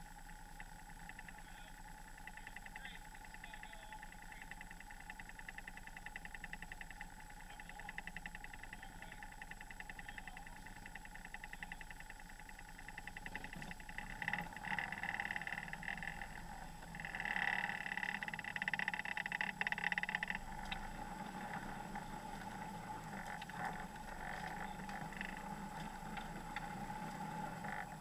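Off-road vehicle's engine running at low speed, muffled through the hood-mounted camera, with a steady hum and a fast even pulse, rising louder for a few seconds twice past the middle as the vehicle creeps along the trail.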